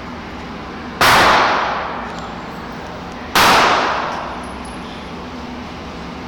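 Two shots from a Ruger .357 Magnum revolver, about two and a half seconds apart, each a sharp crack with an echo trailing off over about a second.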